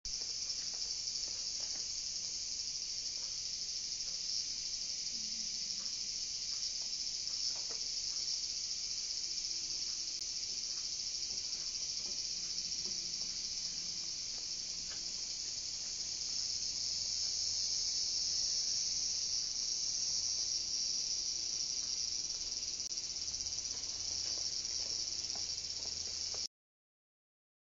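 Steady high-pitched insect chorus, a continuous shrill hiss that grows a little louder past the middle of the stretch and cuts off abruptly about a second before the end.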